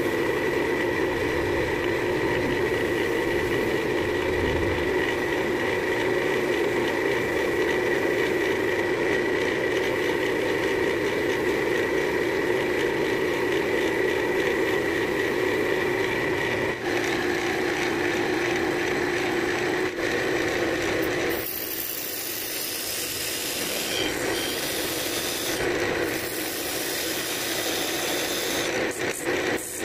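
Wood lathe running with a rag pressed against the spinning cherry-wood piece, rubbing in friction polish: a steady hum with a rubbing sound. About two-thirds of the way through it changes to a parting tool cutting into the spinning wood, a rougher, higher scraping that comes and goes.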